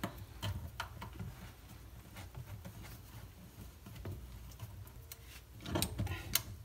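Faint metallic ticks and scrapes as a threaded nut is turned by hand onto a plastic feed water adapter on a shut-off valve. Near the end come a few louder sharp clicks as locking pliers grip and tighten the nut.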